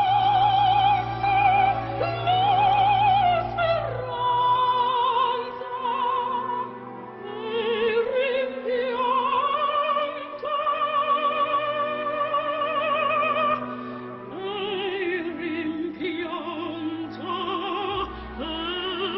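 Music: operatic singing, long held notes with a wide vibrato that move from pitch to pitch every few seconds.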